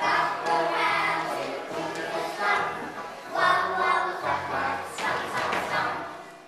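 A group of young children singing an action song together over a backing track, the singing fading near the end.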